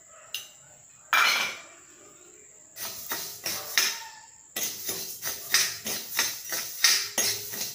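Coriander seeds being stirred and scraped with a spatula around a dry iron kadai, the seeds rattling against the pan during roasting. A single rasping sweep comes about a second in; the strokes start again around three seconds in and run at about three a second from just past halfway.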